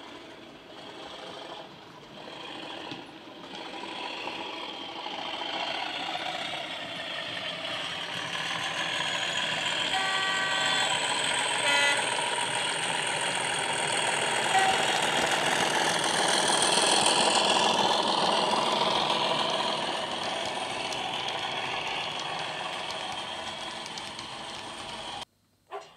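Accurascale Class 37 model locomotive's factory-fitted DCC sound decoder playing an English Electric diesel engine running under power, growing louder as the model approaches and passes and then fading, with a high whistle rising over it. A two-tone horn sounds about ten seconds in, followed by a short toot. The sound cuts off suddenly about a second before the end.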